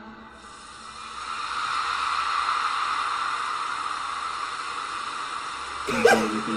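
A steady hissing noise that swells in about a second in and holds, with no beat or tune. A singing voice comes in near the end.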